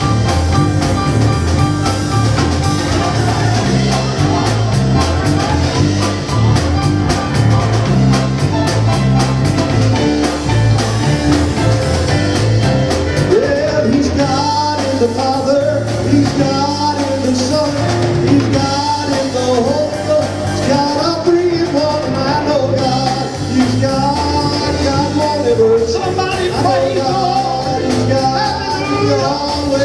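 Live church band music with drums and guitars over a steady beat. A singer's voice comes in about halfway through.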